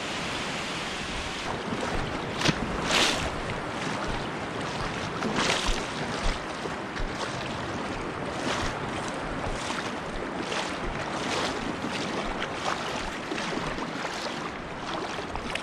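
Water sloshing and splashing as someone wades through shallow lake water to retrieve a shot duck, a louder swish roughly every second, over wind noise on the microphone.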